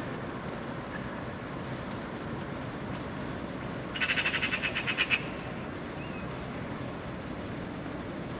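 Eurasian magpie giving its harsh chattering rattle, a quick run of about ten rasping notes lasting just over a second, midway through, the alarm chatter magpies aim at a predator such as a cat. A steady low background hum runs underneath.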